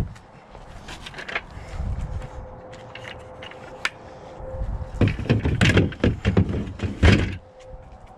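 Kayak dolly wheels and parts knocking and thudding against the hollow plastic kayak hull as they are stowed in its storage hatch. There is a cluster of knocks about five to six seconds in and one heavy thud about seven seconds in.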